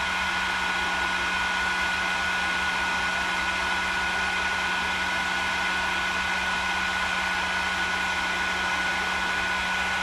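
Tacklife HGP73AC electric heat gun blowing hot air steadily through its reflector nozzle to shrink heat-shrink tubing on a wire. It makes a constant rush of air with a steady low hum and a higher whine.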